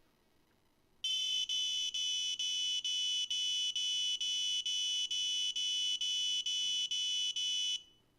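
Buzzer on a homemade Arduino NRF24 wireless alarm receiver sounding a high-pitched alarm tone. It starts about a second in, is broken by a brief gap about twice a second, and cuts off near the end. The alarm goes off because the door's reed switch has signalled that the door is open.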